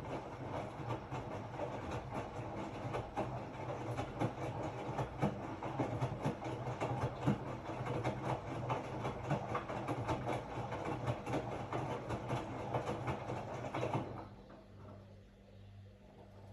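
Hotpoint-Ariston RSG 825 J washing machine in its wash cycle: the drum turns with a steady low motor hum and a dense, irregular rattle and clatter. About 14 seconds in the drum stops and the sound drops to a faint low hum, the pause between tumbling turns.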